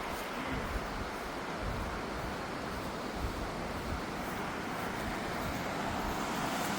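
Wind buffeting the microphone outdoors: a steady hiss with uneven low rumbles.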